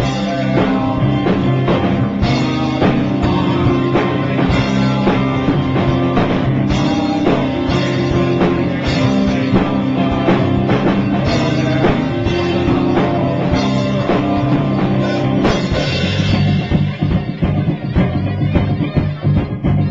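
Rock music with a drum kit and guitar, playing loud and continuously.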